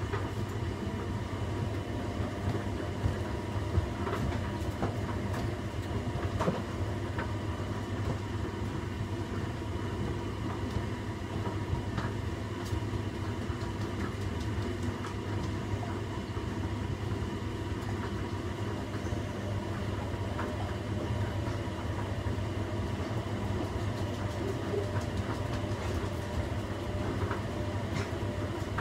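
Washing machine running a cycle: a steady motor hum and drum rumble with occasional light knocks from the load.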